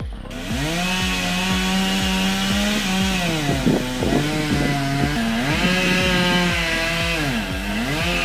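Chainsaw running at high revs, its engine pitch dropping briefly twice and coming back up.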